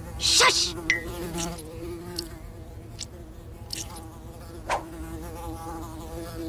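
Cartoon sound effect of a housefly buzzing steadily with a slight waver, broken by several short whooshes, the loudest about half a second in.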